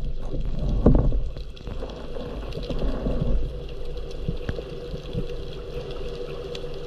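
Underwater ambience picked up by an action camera's housing while a diver swims: a low rumble of moving water with a steady faint hum and scattered faint clicks, and a louder rush of water about a second in.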